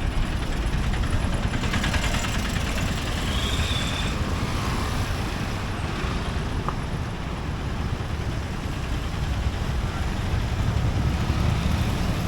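Busy street traffic: a steady wash of passing cars and scooters.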